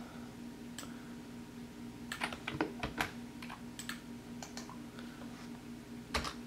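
Computer keyboard key presses: a quick flurry of clacks about two to three seconds in, a few single presses after it, and a harder double press near the end.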